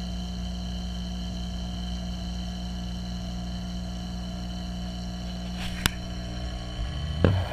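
Steady hum of saltwater aquarium pumps, heard through a camera submerged in the tank, with a faint high whine over it. A sharp click comes about six seconds in and a low knock near the end.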